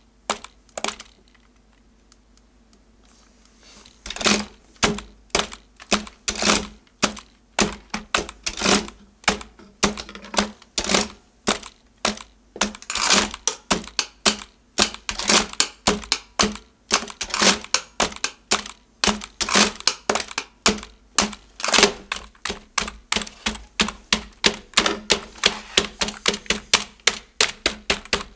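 Computer keyboards and other computer hardware played as percussion: rhythmic clatter of keys and clicks in a steady groove. The clicks stop for about three seconds shortly after the start, then the groove comes back in and carries on.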